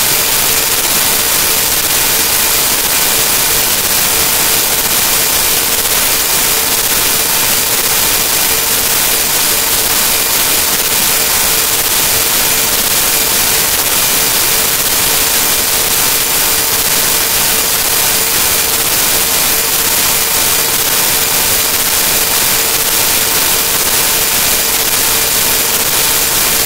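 Loud, unchanging static hiss with a steady hum-like tone just under 500 Hz and fainter tones above it: digital noise from corrupted audio data, the sound track breaking down along with the picture.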